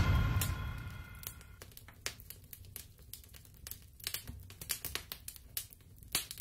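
Intro sound effect: a deep boom fading away over the first second or so, with a faint ringing tail, followed by scattered faint crackles and ticks that stop abruptly near the end.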